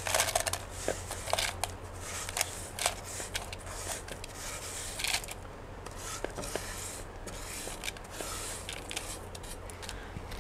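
Light hand-handling sounds of repotting work: irregular small clicks, crackles and scrapes, a few sharper ticks, over a faint steady low hum.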